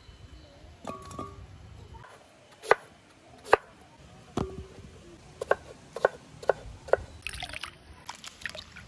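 Cut pieces of breadfruit dropped one at a time into a metal bowl of water, about seven separate plops, followed by brief splashing near the end.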